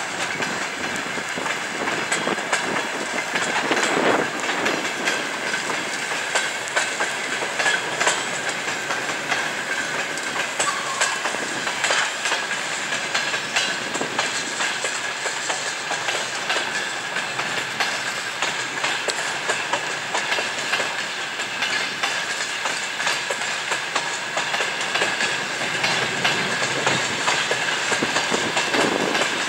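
Passenger train coaches rolling past, their wheels clacking irregularly over rail joints, with a thin steady whine running underneath.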